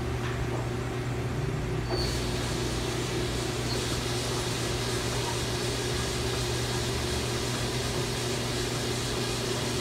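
Mazak Slant Turn 450 CNC lathe spindle running its three-jaw chuck in first gear at about 50 RPM: a steady mechanical hum, with a brighter hiss joining about two seconds in as the chuck gets turning. The gearbox sounds healthy in this low range.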